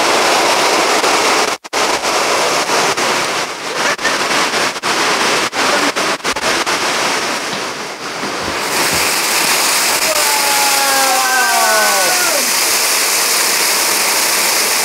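Heavy rain, a steady loud hiss that turns brighter and fuller about nine seconds in. About ten seconds in comes a short falling whine.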